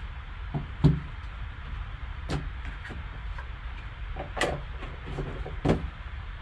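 Handling of a cardboard card box and its foam insert: a card is set into the insert and the box lid slid down over it, giving a few knocks and scuffs, the loudest about a second in. A low hum runs underneath.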